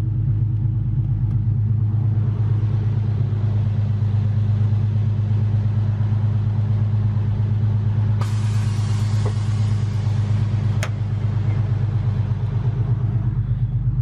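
Infiniti Q50 running at a steady idle, a constant low drone. About eight seconds in, a hiss cuts in for roughly three seconds and ends with a sharp click.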